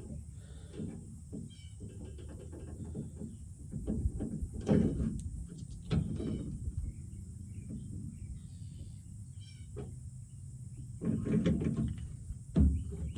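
Handling noise from hooking an electric-fence gate handle onto a polywire hot wire: rustling, light knocks and a few louder thuds, the last near the end. Faint chirping comes and goes early on.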